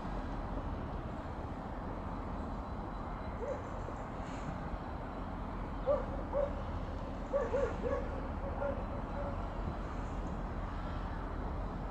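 Steady low outdoor rumble, with a few short, distant animal calls in little clusters through the middle of the stretch.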